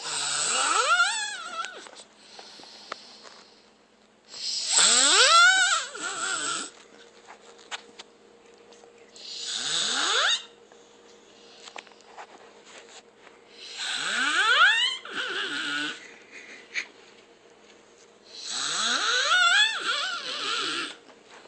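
Snoring: five long rasping snores about every four and a half seconds, each with a whistling tone that rises steeply in pitch, some trailing off in a softer breath.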